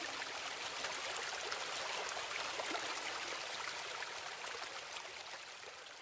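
Small forest waterfall cascading over rocks: a steady rush of water, fading out near the end.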